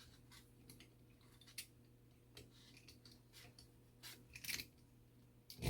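Faint scattered clicks and scrapes of small tools and parts handling a mechanical clock movement as it is taken apart, with a cluster about four seconds in and a sharper click near the end.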